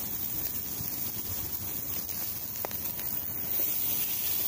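Marinated lamb chops sizzling on a hot charcoal grill: a steady hiss with a couple of faint crackles.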